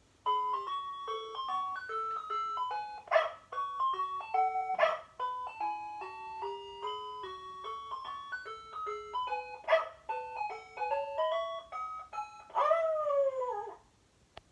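Electronic toy sound chip of a Tyco Magic Lights Elmo & dog playing a simple beeping tune. A few short dog-bark sound effects are mixed in, and it ends on a falling, wavering sound near the end.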